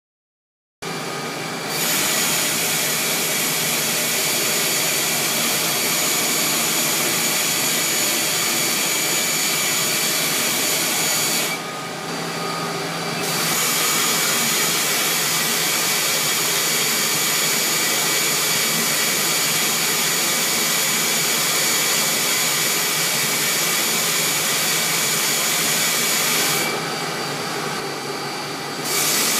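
Agrodrip fogger nozzles spraying water as fine mist under pressure: a steady hiss with a faint whistle on top, starting about a second in. The spray cuts out twice for about two seconds, once around halfway and once near the end, and the hiss thins and drops until it comes back, following the fogger's spray-and-pause cycle.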